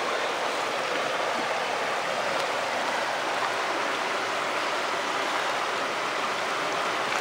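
Shallow mountain stream running over rocks, a steady rushing burble heard close at the water's edge.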